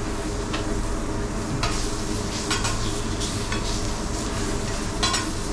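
Hammour fillets sizzling steadily on a hot teppanyaki griddle. A metal spatula scrapes or clicks on the steel about once a second.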